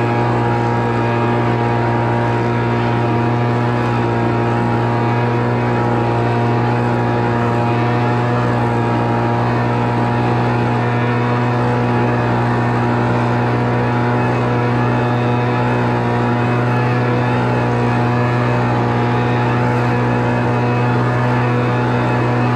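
Homelite Mighty Lite 26BP backpack blower's two-stroke engine running at a steady speed and even pitch while blowing, on a newly replaced carburetor adjusted to run right.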